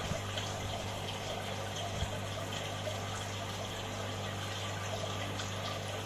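Aquarium water pump running, with a steady trickle of moving water and a low electric hum underneath.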